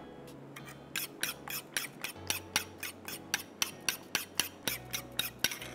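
Quick, even scraping strokes of a utensil worked against a bowl, about four a second, as ingredients are mixed.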